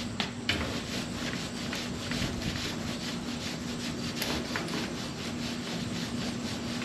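Rhythmic back-and-forth rubbing strokes on a car body panel during primer work, about three strokes a second, over a steady low hum.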